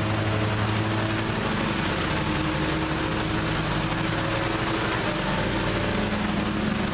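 Riding mower engine running steadily at an even speed, with a constant hum.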